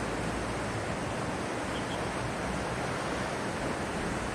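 Mountain stream water rushing steadily, an even hiss with no breaks.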